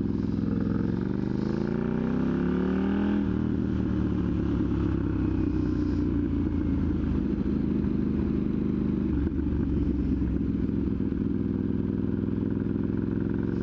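2021 KTM Duke 890R's parallel-twin engine through a catless Austin Racing GP1R exhaust, rising in pitch as it accelerates for about three seconds. The pitch drops suddenly at a gear change, and the engine then runs steadily at cruising speed.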